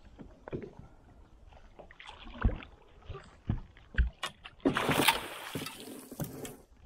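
Scattered knocks and thumps on a small fishing boat's hull and deck as a barramundi is brought alongside and netted, with a brief rush of splashing about five seconds in.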